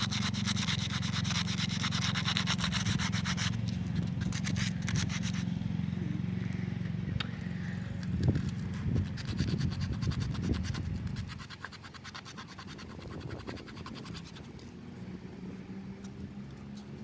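Sandpaper scrubbing on a car wheel rim in rapid back-and-forth strokes, strongest for the first few seconds, then lighter, with a few low knocks in the middle and quieter near the end.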